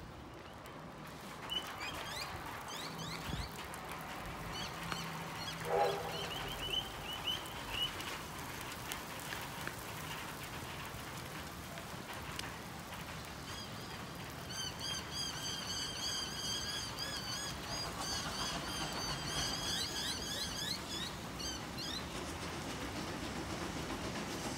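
Birds chirping and calling over a faint steady background hum. A fast run of repeated high chirps comes from a little past halfway until near the end.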